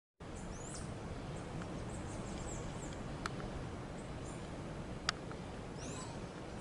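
Euphonia (gaturama) giving short, high, squeaky chirps several times over a steady low rumble, with two sharp clicks near the middle.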